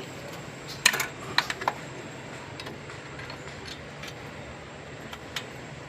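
Metal hand tools clinking and tapping against engine parts while an oxygen sensor is being removed: a quick cluster of sharp clinks about a second in, then a few scattered single ticks over a steady low hum.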